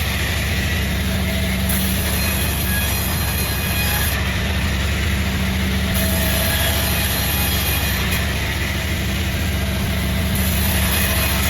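Sawmill machinery running steadily: a constant low hum with a steady layer of mechanical noise over it.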